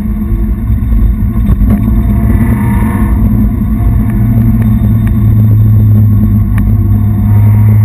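Car engine heard from inside the cabin, running at steady revs under road rumble. Its low drone grows stronger about halfway through. A couple of faint clicks are heard.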